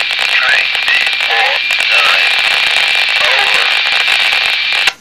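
Railroad hotbox detector's automated voice announcement heard through a handheld two-way radio's speaker. The words are broken up by static hiss and a steady high whine, and the transmission cuts off abruptly at the end.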